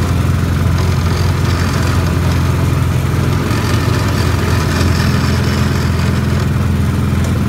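Small engine of an antique-style ride car running steadily as the car drives along its track, a steady low hum.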